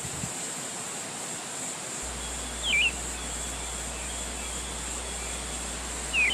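Steady rush of wind through a forest, with a small bird giving two short chirps, one about halfway through and one at the very end.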